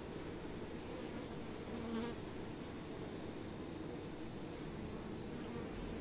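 Honey bees humming steadily as a dense cluster on an exposed comb, briefly louder about two seconds in.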